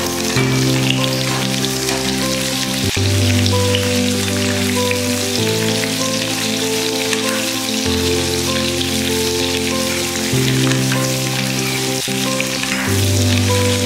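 Raw mango pieces sizzling in hot mustard oil in an iron kadai while being stirred, a steady frying hiss. Background music with long held chords that change every two to three seconds plays over it.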